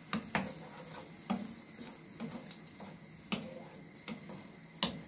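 Wooden spatula stirring pork, tomatoes and peppers in a frying pan, knocking against the pan in irregular taps about once a second over a faint sizzle of frying.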